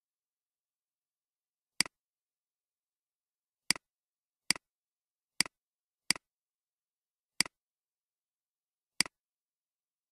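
Seven sharp computer-mouse clicks at uneven intervals, each with a fainter second tick just after it, like a button press and release. There is complete silence between them.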